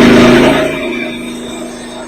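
Portable bandsaw mill running loud, its engine and blade working through a cherry log, easing off to a lower steady running sound about two-thirds of a second in.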